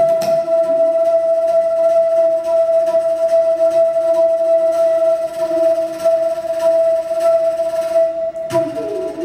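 Bansuri holding one long, steady note over light, evenly spaced tabla strokes, with a louder stroke near the end.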